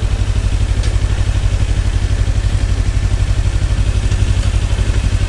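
Kawasaki Ninja 300's parallel-twin engine idling steadily, with an even, rapid pulsing rumble.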